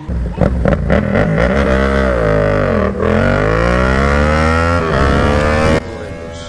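Sport motorcycle engines accelerating hard from a standing start in a drag race, Yamaha MT-07 and BMW S1000RR side by side. The revs climb steeply, drop sharply about three seconds in and again about five seconds in as gears change, then climb again. The sound turns suddenly quieter just under a second before the end.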